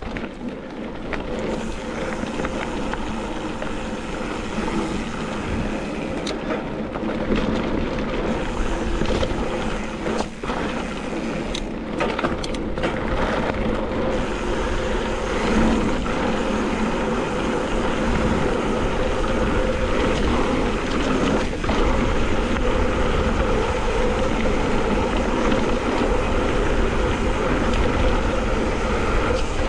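Wind buffeting the microphone of a helmet-mounted action camera, mixed with mountain bike tyres rolling over a dirt trail: a steady rush that grows louder through the ride.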